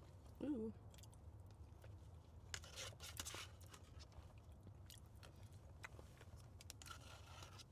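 Faint mouth sounds of a person chewing a spoonful of mashed potatoes with gravy: a short 'mm' about half a second in, then soft scattered smacks and clicks, over a low steady hum.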